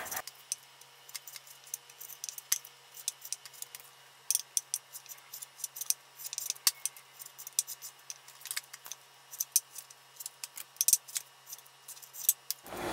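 Chef's knife cutting excess skin off raw chicken thighs on a wooden cutting board: irregular light clicks and taps as the blade meets the board.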